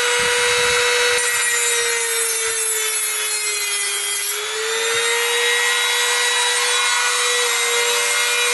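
Handheld rotary tool with a cutting disc running at high speed with a steady whine, grinding through the metal tab joining lithium-ion cells. The pitch sags a little about three seconds in as the disc bears down, then picks up again.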